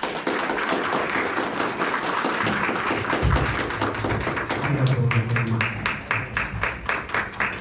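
Audience applause: dense clapping from many hands that, after about five seconds, thins into a few people clapping in a steady rhythm.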